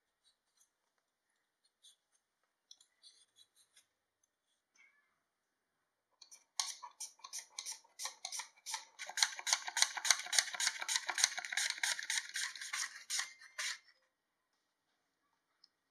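Raw potato sliced thinly on a handheld mandoline slicer: a fast, even run of rasping strokes, about four a second, that starts about six seconds in and stops just before the end. Before it, a few faint scrapes of a peeler taking the skin off the potato.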